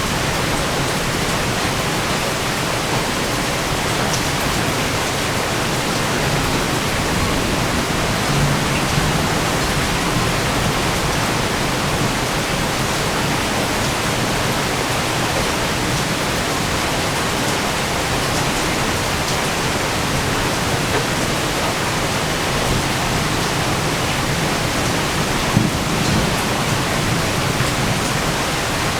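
Heavy thunderstorm rain falling steadily as a dense, even hiss, with a single sharp tap about 25 seconds in.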